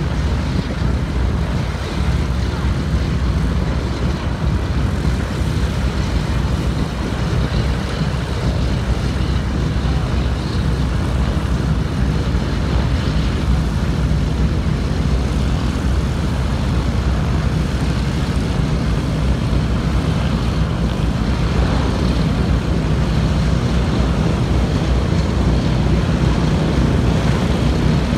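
The two Wright R-2600 radial engines of a North American B-25 Mitchell running as it taxis, a steady low drone with propeller noise, growing a little louder in the second half as the bomber turns toward the listener.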